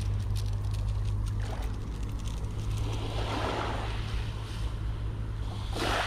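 Sea waves washing on the shore over a steady low rumble, with two swells of surf about three and six seconds in.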